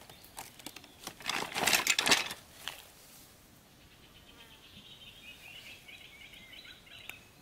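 Rustling and scraping of hands handling string and gear, loudest between about one and two seconds in. Then a faint, steady, finely pulsing insect buzz sets in, from about three and a half seconds.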